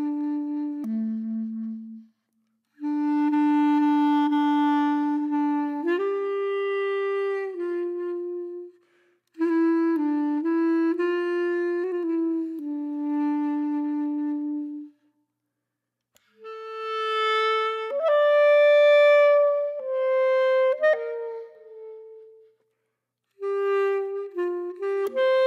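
Background music: a single wind-instrument melody played in phrases a few seconds long, separated by brief silent gaps.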